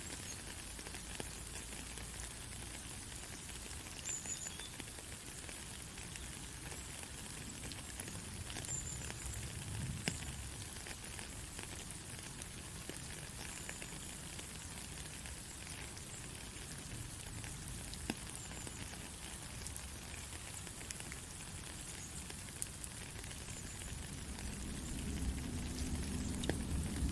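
Heavy rain falling steadily, an even hiss with scattered drop ticks. A low rumble of distant thunder swells near the end.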